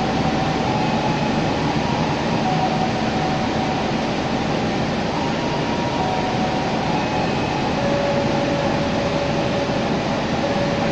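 Passenger train coaches rolling slowly past on the next track, a steady even rumble with faint on-and-off thin tones.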